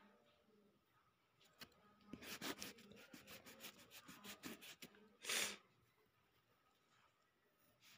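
An eraser rubbed quickly back and forth on paper, about seven strokes a second for roughly three seconds, then one brief louder whoosh.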